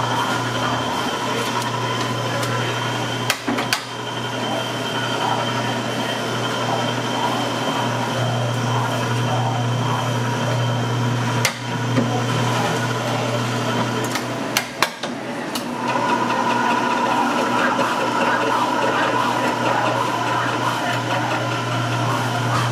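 Steady low machine hum of a deli workspace, with a few sharp clicks and knocks of handling at about three and a half, twelve and fifteen seconds in.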